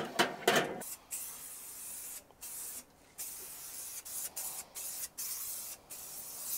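Aerosol can of cooking oil spraying onto hot grill grates to season them. The hiss comes in a series of bursts with brief breaks between them.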